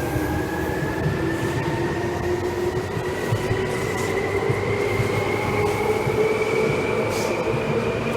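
Seibu 2000 series electric train running, with a steady rumble and a whine that rises slowly in pitch as the train speeds up.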